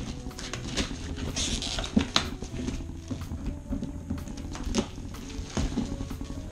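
Plastic shrink-wrap crinkling and crackling as it is peeled and torn off a cardboard box, in irregular rustles and snaps.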